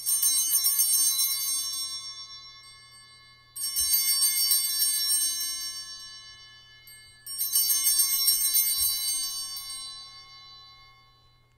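Altar bells (Sanctus bells) shaken three times, each ring jingling brightly and fading away over about three seconds. This is the ringing at the elevation of the chalice, just after the words of consecration.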